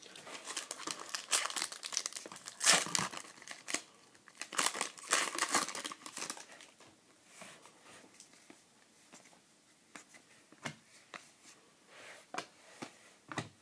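Foil trading-card pack wrapper crinkling and tearing open, loudest in the first six seconds. After that come softer, scattered clicks and rustles as the cards are handled.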